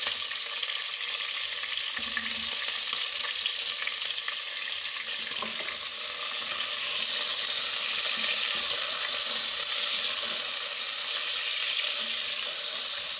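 Chicken pieces and chopped garlic frying in hot oil in a pot: a steady sizzle, stirred with a wooden spatula, growing a little louder about halfway through.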